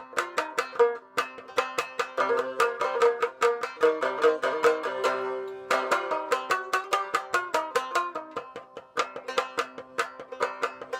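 Shamisen with a mai daeng wood body and calfskin head being played: a quick run of sharp, twangy plucked notes, several a second, each ringing briefly.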